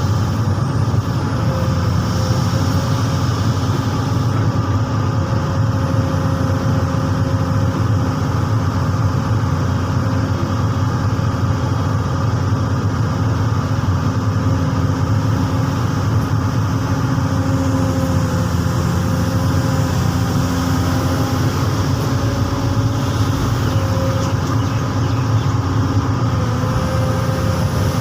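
Komatsu PC200 hydraulic excavator's diesel engine running steadily: a constant loud drone with a thin steady whine above it.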